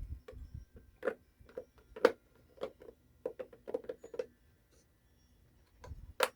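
Small hard clicks and taps of drill bits and the plastic case of a drill bit set being put back together, in an irregular string with the sharpest click just before the end.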